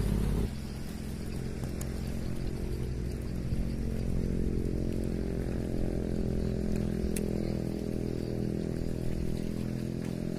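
An engine running steadily at an even pitch, with a louder low rumble in the first half second.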